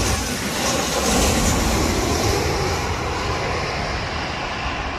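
Twin-engine jet airliner passing low overhead on landing approach, its engine noise loudest about a second in and then slowly fading as it moves away.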